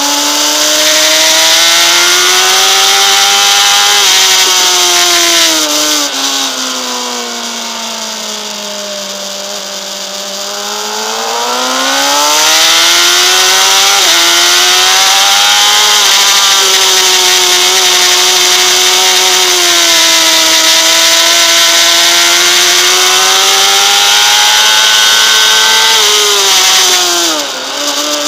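Honda CBR600RR's inline-four engine revving hard on track, with heavy wind rush over the bike. The pitch climbs under acceleration, then sinks for several seconds off the throttle through a corner. It climbs again through a gear change and holds high for a long stretch, then drops sharply with downshifts near the end.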